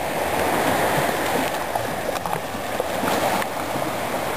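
Sea water lapping and sloshing against a concrete jetty and moored boats: a steady splashing hiss with scattered small clicks.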